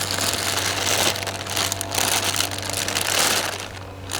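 Packing material rustling and crinkling in irregular surges as a new transaxle is unwrapped from its box.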